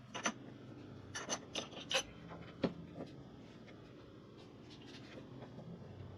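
Hand work at a mini lathe while the part is re-centred: several sharp metal clicks and knocks in the first three seconds, then quieter rubbing and scraping.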